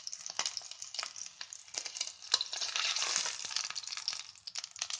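Lamb shank searing in smoking-hot sunflower oil in a deep cast-iron casserole: a steady sizzle full of spitting crackles, louder for about a second around the middle.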